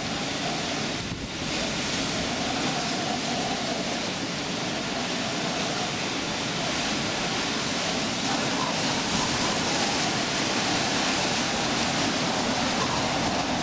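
Hurricane-force wind blowing steadily as one dense rushing noise, a little louder from about eight seconds in.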